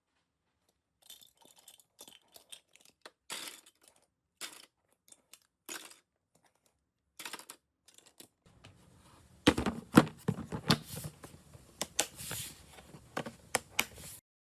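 Scattered light clicks, taps and rustles of small objects being handled, getting busier and louder about eight seconds in.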